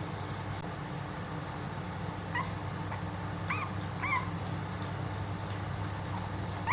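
Three-week-old miniature dachshund puppies giving three short, high, squeaky whimpers between about two and four seconds in, over a steady low hum.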